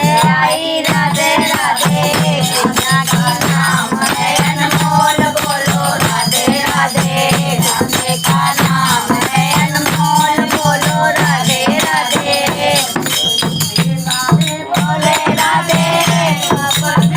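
A Hindi devotional folk song (bhajan to Radha) sung to a steady rhythm of a low drum and dense, clicking hand percussion.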